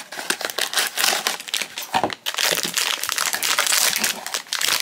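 Silver foil inner bag of a Pop Mart blind box crinkling and crackling as it is handled and opened, with a short pause about two seconds in.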